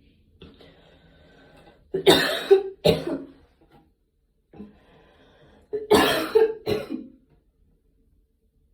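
A person coughing after a workout: two fits of two harsh coughs each, the first about two seconds in and the second about six seconds in.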